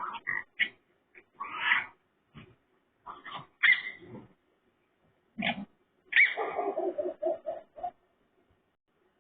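Raccoon making pig-like calls in short separate bursts, with a longer call about six seconds in that ends in a quick run of short pulses.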